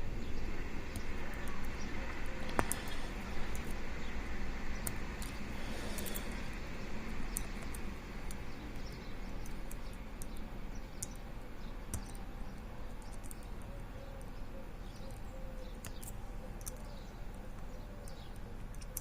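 Scattered small metallic clicks and light scraping of a lock pick and tension wrench working the pins inside a pin-tumbler disc brake lock, over a steady background hiss.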